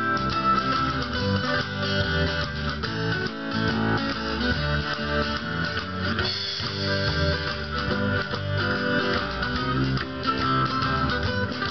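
Acoustic guitar strummed in a steady rhythm, playing an instrumental stretch of an old-time country song.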